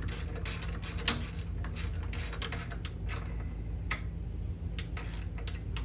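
Wrench working small bolts tight: a run of sharp mechanical clicks, a few a second, over a steady low hum. The sharpest click comes about a second in and another just before four seconds.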